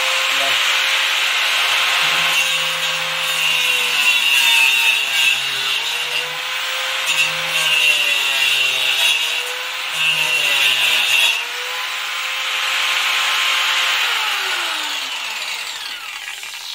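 An angle grinder converted into a saw cutter, its saw blade cutting through a wooden plank. The motor's whine sags and recovers several times as the blade bites into the wood between about two and eleven seconds in. It then runs free and winds down, its pitch falling, as it is switched off near the end.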